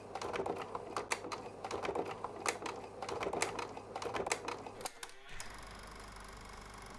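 A rapid, irregular clatter of sharp clicks lasting about five seconds. It stops abruptly, leaving only a steady low room hum.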